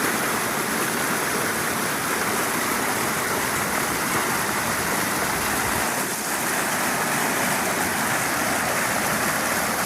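Creek water rushing steadily and loudly, a constant even roar with no break.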